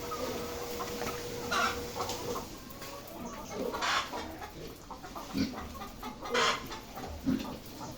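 Laying hens clucking, several separate short calls scattered over a steady background din, with a faint steady hum during the first couple of seconds.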